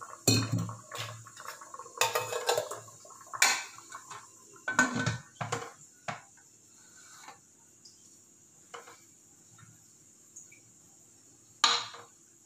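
Metal pressure cooker and its lid being handled: a run of sharp clanks and knocks in the first half, then a few lighter taps and one louder knock near the end.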